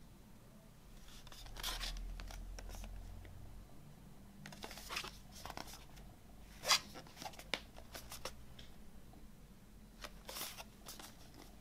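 Cardboard CD box set handled and turned over in the hands: scattered soft rustles and scrapes of card against skin, with a sharp tap a little after the middle.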